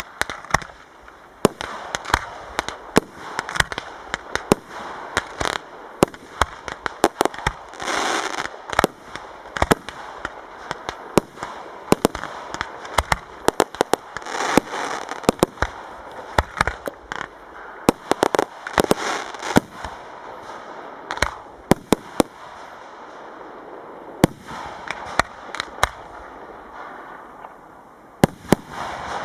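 Professional fireworks display: a long, irregular barrage of sharp shell bangs, some in quick clusters, with stretches of dense crackling several times along the way.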